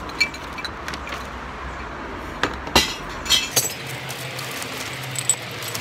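Glass bottles dropped into a glass-recycling bank, clinking and smashing against the glass already inside: a few sharp knocks, the loudest cluster about halfway through and one more near the end. A steady hum of traffic runs underneath.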